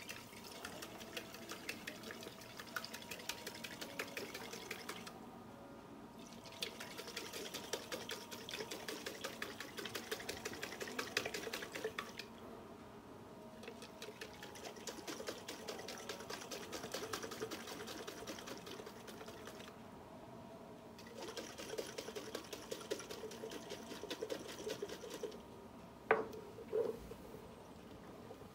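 Sugar and 20% alcohol sloshing and rattling in a closed glass jar shaken rapidly by hand, to dissolve the sugar. The shaking comes in four long spells with short pauses between. A couple of knocks near the end as the jar is handled.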